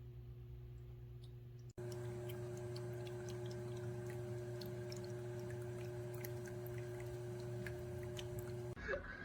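Small tabletop fountain's electric pump humming steadily, with water trickling and dripping over the tiers in many small ticks. The sound cuts out for an instant about two seconds in and comes back a little louder, then breaks off near the end.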